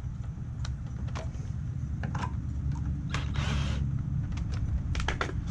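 2x4 boards being shifted and fitted into place by hand: scattered knocks, clicks and creaks of wood, with a short scraping rustle about three and a half seconds in, over a steady low rumble.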